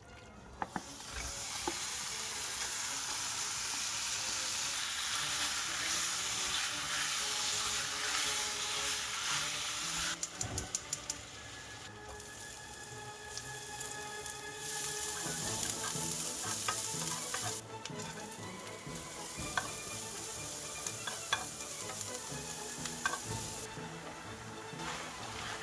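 Food sizzling in a hot frying pan as it is stir-fried. About ten seconds in there is a quick run of clicks, and there are scattered knocks, from the utensil against the pan.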